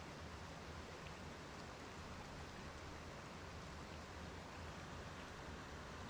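Small stream flowing over shallow riffles: a steady rush of water.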